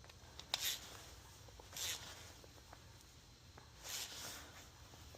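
Faint hand work on metal parts: scattered small clicks, one sharper near the start, and three short rustling hisses as a catch can and its bracket are handled and fitted together.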